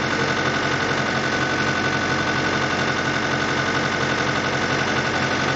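Fiat 640 tractor's four-cylinder diesel engine idling steadily, with a constant high whine over it.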